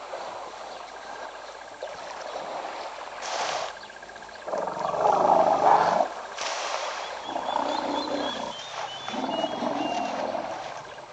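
A large wild animal calling: one long, loud roaring call about four and a half seconds in, followed by two shorter, lower calls. Faint bird chirps sound in the background.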